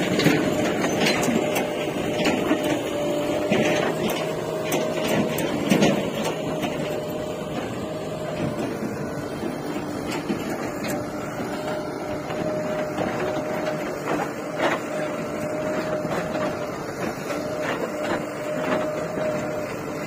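JCB 3DX backhoe loader at work: its diesel engine running steadily under a constant whine, with clanks and knocks over the first several seconds that thin out later.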